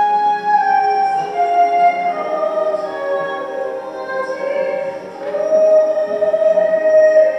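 Slow sacred music with long held melody notes.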